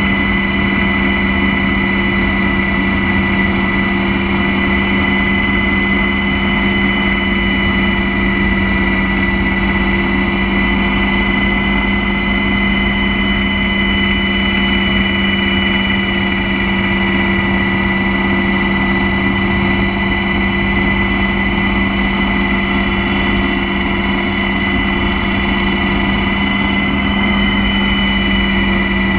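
Steady engine drone heard from on board a flying aircraft: a constant low hum under a high whine, with no change in power.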